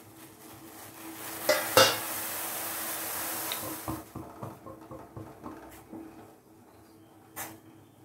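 Vermicelli boiling hard in water in a steel saucepan: a frothing, hissing boil that swells after about a second and is loudest for a couple of seconds, with two sharp metallic clinks early on and small popping ticks as it dies down. A single clink of a spatula on the pan comes near the end.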